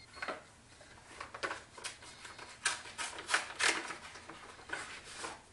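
Paper envelope being torn open and handled: a series of short, irregular ripping and rustling sounds, loudest around the middle.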